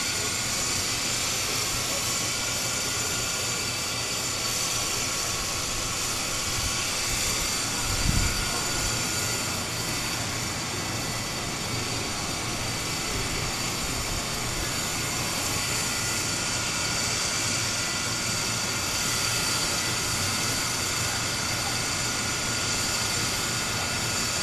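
An engine running steadily, with a steady high whine over the drone. A single low thump comes about a third of the way through.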